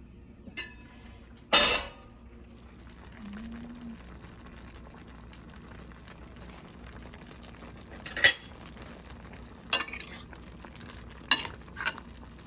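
A metal spoon clanking against a stainless steel pot of simmering vegetable stew, about six sharp knocks with the loudest near the start, over a steady low hiss from the pot.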